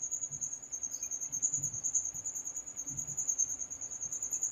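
Crickets trilling steadily in a continuous high-pitched chirr.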